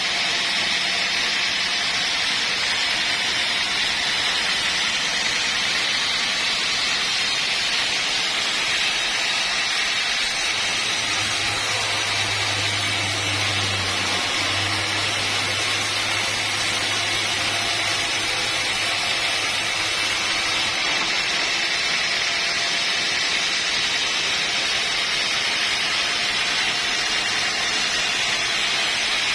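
Sawmill machinery running with a steady hissing noise. A low hum joins about ten seconds in and stops about twenty-one seconds in.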